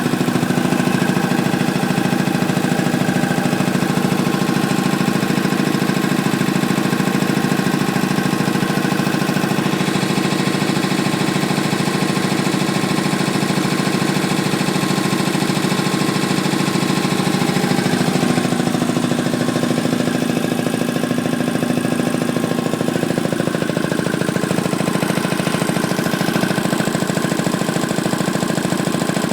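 Ingersoll-Rand T-30 two-stage, belt-driven piston air compressor running steadily, pumping up its tank pressure.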